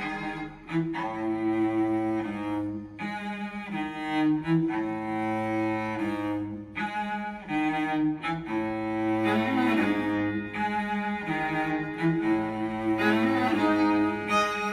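Bowed string music with long, low sustained notes that change every second or so, played back through KEF Q Concerto speakers driven by a Yamaha R-N800A receiver.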